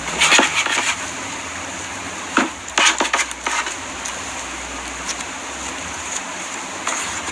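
Clear slime being squished and worked by hand, giving sticky crackles and small pops over a faint steady hiss, with a cluster of crackles around three seconds in.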